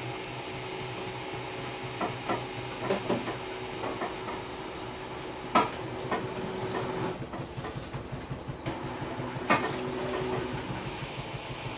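Samsung Eco Bubble washing machine running a wash cycle: a steady motor hum while the drum turns the wet laundry, with a few sharp clunks, the loudest about halfway through and again near the end.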